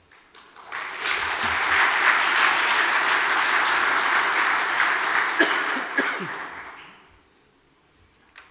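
Audience applauding at the end of a talk. The clapping builds up within the first second, holds steady, and dies away over the last couple of seconds.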